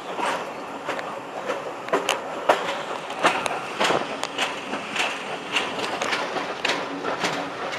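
Railway carriage running along the track, with a sharp regular knock about twice a second from a flat spot on one of its wheels over the steady rumble of wheels on rail.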